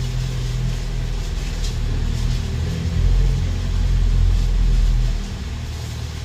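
Low steady background rumble and hum, swelling louder for about two seconds in the middle.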